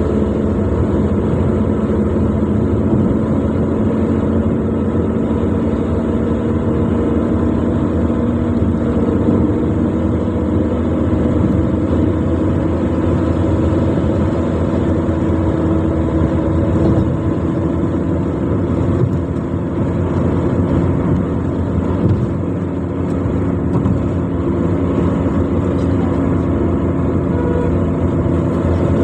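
Car driving along: a steady engine hum with road and tyre noise, the engine's pitch drifting slightly up and down.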